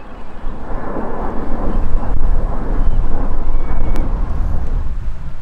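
Jet engine noise of an Airbus A320 climbing out overhead, a steady rumble, with strong wind buffeting on the microphone.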